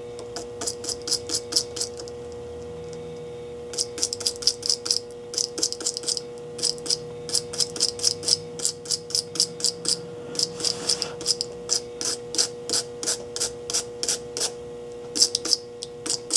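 Toothbrush wet with alcohol scrubbing flux residue off a fresh solder joint: quick back-and-forth bristle strokes, about five a second, in runs with short pauses.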